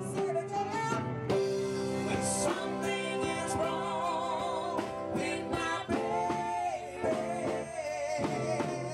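Live band playing: drums keeping a steady beat under electric bass, keyboards and guitar, with a woman singing.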